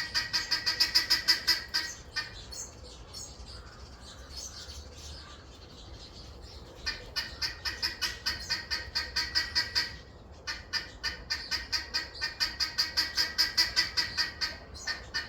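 A bird calling loudly in long runs of rapid, harsh, evenly spaced notes, about seven a second. The first run ends about two seconds in, a second starts near seven seconds, and after a short break it runs on almost to the end.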